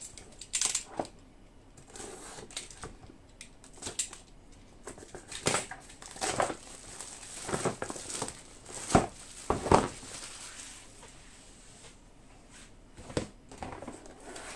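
Model ship kit parts and packaging being handled and packed away: scattered rustles, clicks and knocks of cardboard and plastic, two of them louder about nine and ten seconds in.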